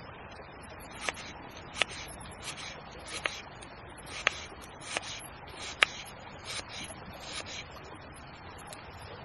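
Campfire crackling: sharp, irregular pops every second or so, with softer ticks between them.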